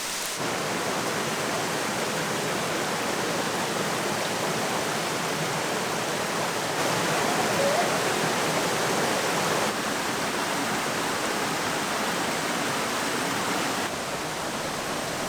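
Waterfall rushing: a steady, even roar of falling water that shifts slightly in level a few times.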